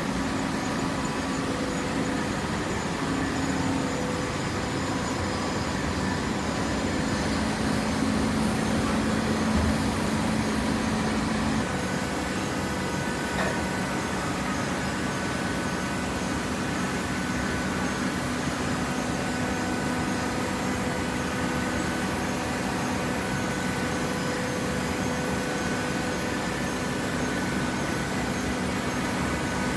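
Hydraulic waste-paper baler running: the electric motor and hydraulic pump give a steady hum with machine noise, and the hum's pitch shifts slightly about twelve seconds in.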